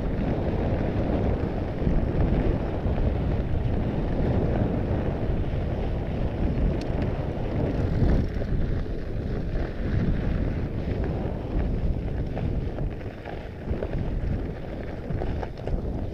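Wind buffeting the microphone of a camera riding on a Mondraker Panzer fat bike, over a steady rumble of its wide knobby tyres rolling on gravel.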